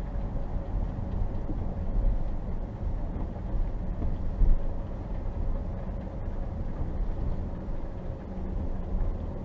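Steady road noise inside a moving car's cabin: a low rumble of tyres and engine at highway speed, with a faint steady hum.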